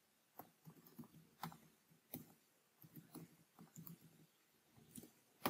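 Faint, scattered computer keyboard keystrokes, a single click every second or so, over near silence.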